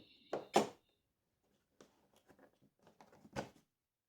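Router accessories being handled: two sharp knocks about half a second in, a few faint clicks, and another knock near the end, as hard plastic and metal parts are picked up and set down.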